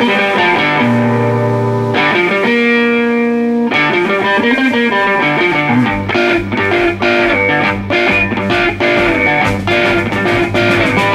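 Instrumental guitar break in a rock song, with bass and no singing. It holds sustained chords at first and turns to a choppy, rhythmic strumming about halfway through.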